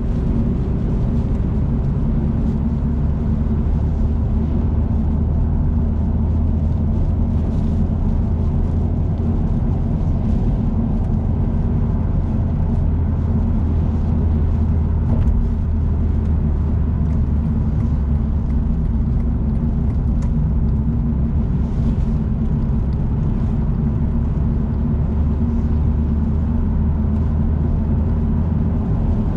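Steady low rumble of a car driving at highway speed, heard from inside the cabin: road and tyre noise with engine drone, and faint scattered ticks over it.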